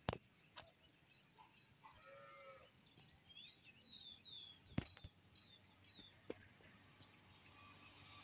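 Faint birds calling: short, high rising chirps repeated several times, with a brief lower call about two seconds in and a few sharp clicks.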